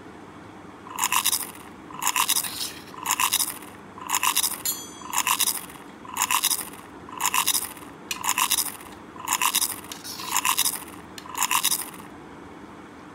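A short, scratchy scraping sound repeated eleven times at an even pace of about one a second, each stroke about half a second long.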